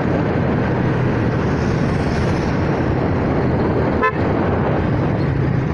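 Kawasaki Fury 125 motorcycle running at cruising speed, its engine hum mixed with steady road and wind noise at the onboard microphone. A brief horn toot sounds about four seconds in.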